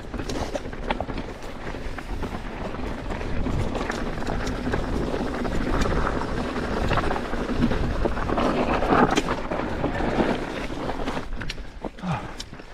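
Mountain bike riding down a rocky trail: wind rushing over the microphone and tyres rolling over loose rocks, with many sharp clicks and rattles from the bike. The noise swells somewhat in the middle.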